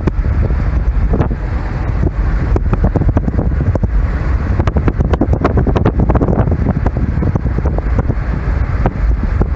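Wind buffeting the microphone of a moving car, a loud, gusty low rumble full of short pops, over the car's running noise.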